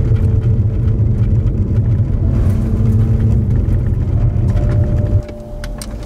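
Strong storm wind buffeting the microphone: a loud, gusty low rumble that drops off suddenly about five seconds in.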